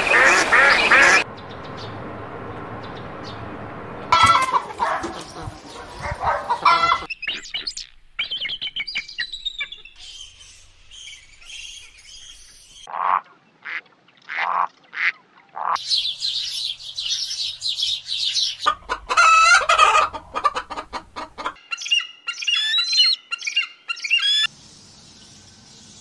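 A run of clips of ducks and other waterfowl calling, joined by abrupt cuts. It opens with a loud, dense flock chorus, has a few separate quacks around the middle, and ends in a busy stretch of higher calls.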